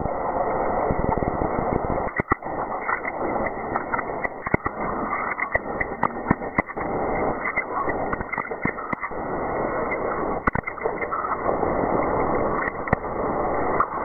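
Seismometer recordings sped up into audible sound: a steady rushing hiss with scattered sharp pops and crackles. This is the background ground noise, wind, microseisms and traffic, on the stations at the Fresno end of the line, far from the mine blast.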